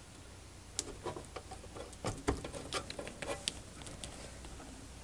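Scattered light clicks and small knocks of battery leads and connectors being handled and pushed onto the terminals of a UPS's replacement battery pack, mostly in the first three and a half seconds.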